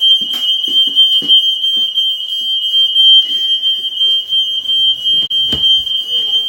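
Household smoke alarm sounding nonstop with one steady, high-pitched shrill tone: a faulty alarm that won't stop going off. A sharp knock comes about five and a half seconds in.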